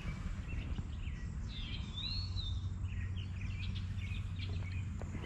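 Songbirds chirping, with one longer rising-and-falling whistle about two seconds in, over a steady low rumble.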